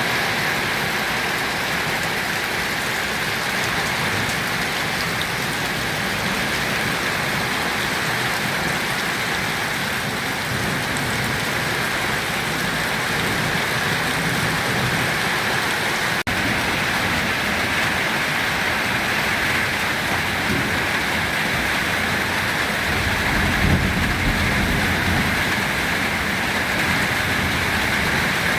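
Steady heavy rain falling, an even hiss of rain on a surface, with a brief low rumble a few seconds before the end.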